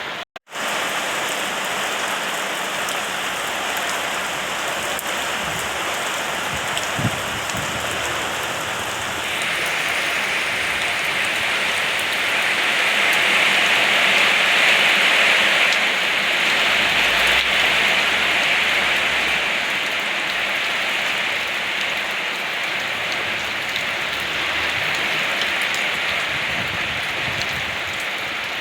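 Steady rain falling, a continuous patter that swells heavier about a third of the way in and eases a little near the end.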